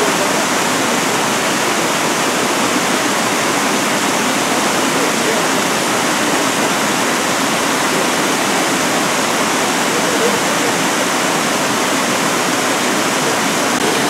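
Waterfall pouring over rock ledges into a pool: a steady, unbroken rush of falling water.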